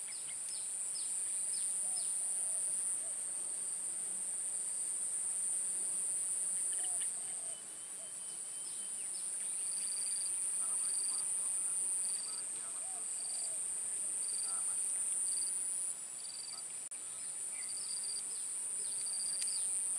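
Steady high-pitched trilling of insects from the swamp grassland, its loudness stepping up and down every few seconds. A lower series of short chirps runs over it, quick falling notes at first, then about one a second through the second half.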